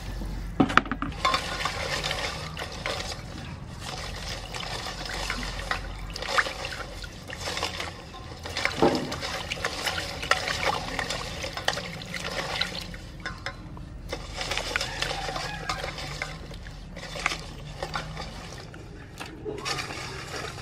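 Hands swishing and rubbing small crabs in water in a stainless-steel bowl, to wash them: continuous sloshing and splashing with frequent small clicks and knocks.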